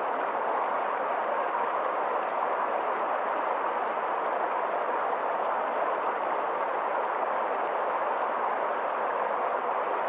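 Mountain stream rushing over rocks in small cascades: a steady, even rush of water that does not change.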